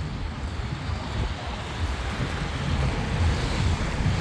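Car tyres hissing on a wet road, the hiss swelling in the second half as a car draws near, over wind buffeting the microphone.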